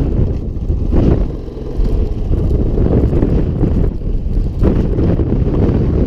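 Quad bike and dirt bike engines idling, heavily overlaid by wind buffeting the microphone, with a brief lull about a second and a half in.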